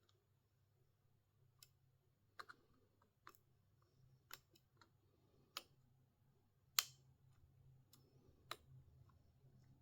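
Sparse, irregular small clicks and taps of tools and parts on a phone under repair as its new motherboard is fitted, about ten in all, the loudest a sharp click about seven seconds in, over a faint steady low hum.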